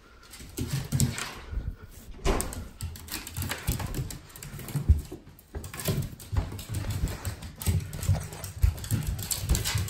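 Small dogs on leashes moving about on a wooden floor: irregular taps, scuffles and low thumps.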